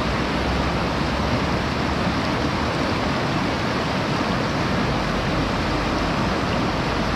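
Shallow river water rushing steadily over rocks and spilling in small cascades between boulders: a continuous, even rush.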